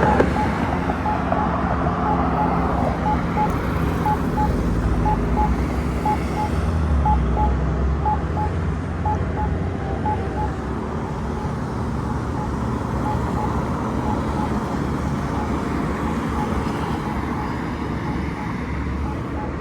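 Campbell PedSafety accessible pedestrian signal pushbutton sounding its locator tone, a short beep repeating about once a second during the don't-walk interval, over steady road traffic.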